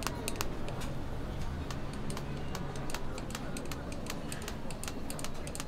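Rapid, irregular clicking, several clicks a second, from a baby castella batter dispenser as it drops batter into one mold cup after another on a cast-iron griddle plate, over a steady low hum.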